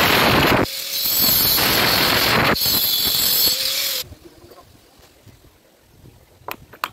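Handheld electric angle grinder with a cutting disc slicing through PVC water pipe: a loud, steady grinding noise that dips briefly twice and stops about four seconds in. Near the end, a couple of sharp hammer taps.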